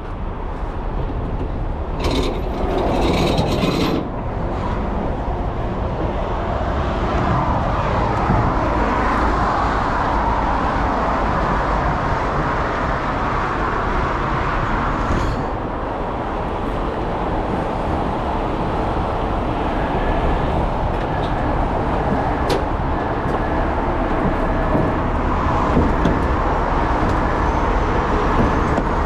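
Heavy vehicle engines running steadily with a low rumble, and a hiss lasting about two seconds that starts about two seconds in.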